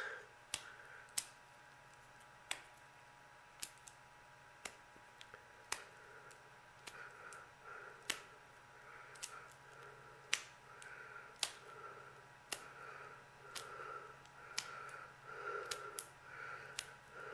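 Axle roller bearing being hand-packed with grease: the bearing is slapped and pressed into a palmful of grease to force it between the rollers. Light sharp clicks come about once a second throughout, and from about halfway in soft wet smacks join them about once a second.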